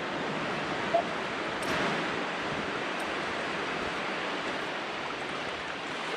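Shallow surf washing in over the sand at the water's edge, a steady hiss, with a brief tick about a second in.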